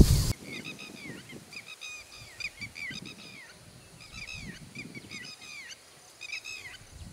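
Birds calling: repeated clusters of short, high chirps that curve downward in pitch, a few every second. A loud rumbling noise cuts off suddenly right at the start.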